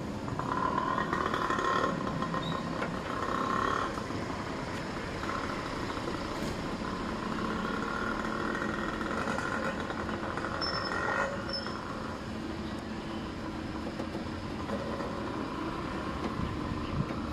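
Motor-vehicle traffic going by: a continuous engine and road noise that rises and eases off several times.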